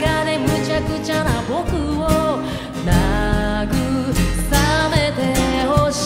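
Live band music: a lead vocal sung over guitar and band accompaniment.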